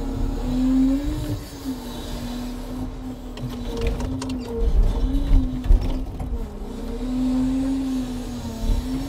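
Timber truck's diesel engine running, its pitch rising and falling by turns as the load on it changes, with a few light knocks about three to four seconds in.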